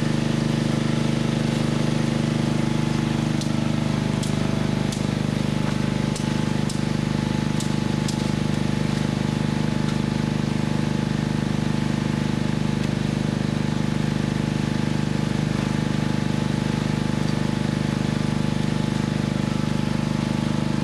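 An engine running steadily with a low, even hum, with a few short sharp clicks in the first half.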